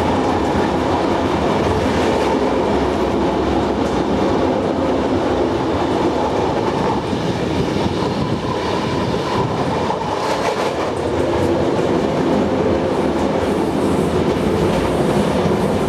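Running noise of a three-axle B3yG rebuilt passenger coach in motion, its wheels rolling steadily over the rails with some clatter and a few brief rattles about two-thirds of the way through.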